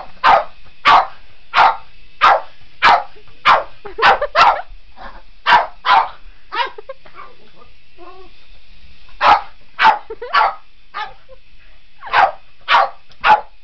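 Boston terrier barking: a rapid run of sharp barks for about six seconds, a pause of about three seconds, then more barks in short groups.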